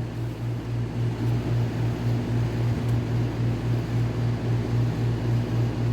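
Steady low machine hum that pulses about three times a second.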